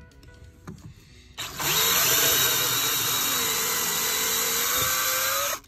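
Power drill boring a test hole into a fibreglass boat transom to check whether it has a plywood core. It starts about a second and a half in, runs steadily for about four seconds with its pitch sagging under load midway, then stops suddenly.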